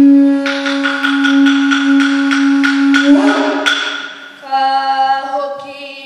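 Māori performance music: one long held high note with poi balls tapping about four times a second, then a new phrase of singing from about four and a half seconds in.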